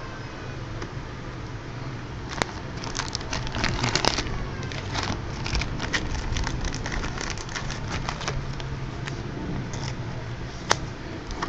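Plastic card packaging crinkling and crackling as it is handled and opened, with a sharp click about two seconds in and another near the end, over a steady low hum.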